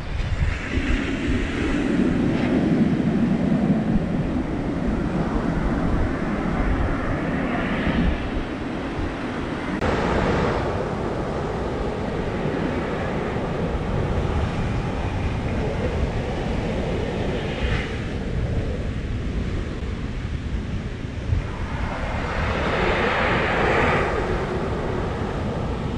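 Ocean surf: waves breaking and washing up a sandy beach, swelling and easing in repeated surges. Wind rumbles on the microphone throughout.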